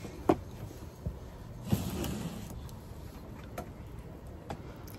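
Small objects being handled: a few short, sharp clicks and light knocks, with a brief rustle about two seconds in.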